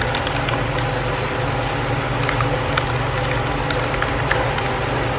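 A steady, even mechanical hum with several fixed tones, like a running electric motor or fan, with scattered faint small clicks.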